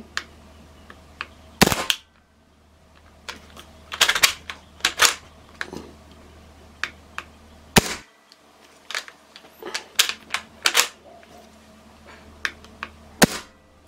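Hatsan Blitz .22 PCP air rifle, fitted with a DonnyFL Emperor silencer, firing a string of sharp, separate shots and clicks a second or more apart rather than a full-auto burst. On full auto the gun is giving only single shots.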